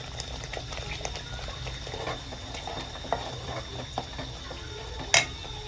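Thick masala paste frying in an aluminium pot, with scattered crackles and spluttering while a steel ladle stirs and scrapes it. There is a sharp metal clink about five seconds in.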